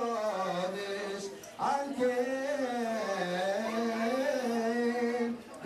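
A man chanting a Jewish liturgical blessing solo into a handheld microphone, in long held notes that bend up and down, with a short break for breath about a second and a half in.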